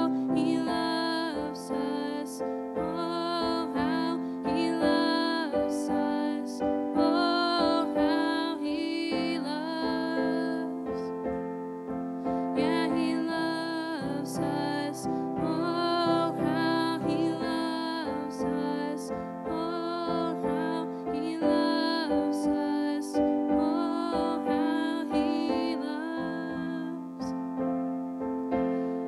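Piano played on a stage keyboard: a slow, gentle instrumental of sustained chords.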